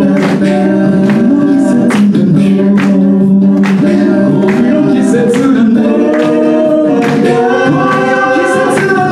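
A cappella vocal group singing sustained harmonies, some voices gliding in pitch, over a steady beatboxed beat.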